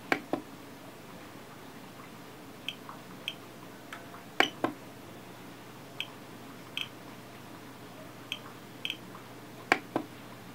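A series of short, sharp clicks at irregular intervals. The loudest come in quick pairs near the start, in the middle and near the end, over a faint steady hum.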